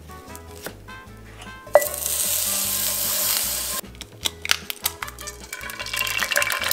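Butter sizzling loudly in a hot cast iron skillet, starting sharply about two seconds in and cutting off abruptly about two seconds later. After that come scattered small taps and ticks, and a lighter sizzle rises again near the end as an egg drops into the foaming butter.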